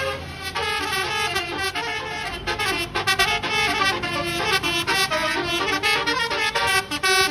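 Bus basuri horn, a multi-tone telolet horn, playing a melody in quick stepped notes. A low hum lies underneath for the first few seconds.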